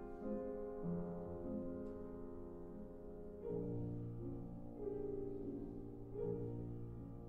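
Quiet instrumental background music: slow, sustained chords that change about a second in, midway, and again near the end.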